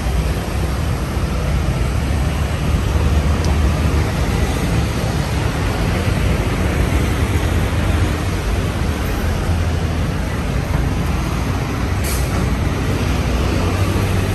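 Street traffic on a busy road: a steady rumble of vehicle engines and tyres, with a short high hiss about twelve seconds in.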